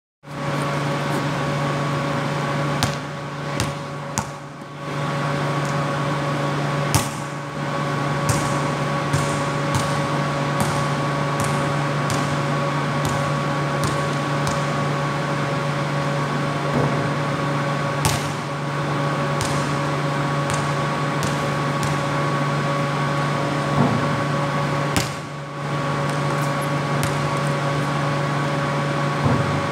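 A steady hum holding several constant tones, with short sharp knocks, in places about once a second, from a basketball bouncing on a concrete floor. The hum drops out briefly twice.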